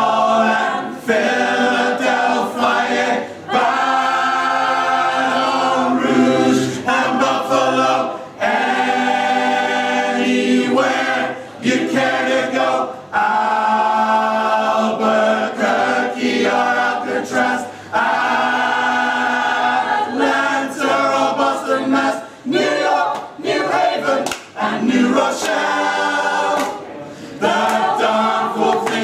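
Mixed choir of men's and women's voices singing a cappella in harmony, in phrases of a few seconds each with short breaks between them.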